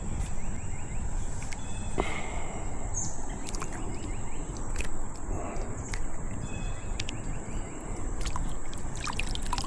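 Outdoor ambience: a steady high-pitched insect drone over a low rumbling noise, with scattered small clicks and taps.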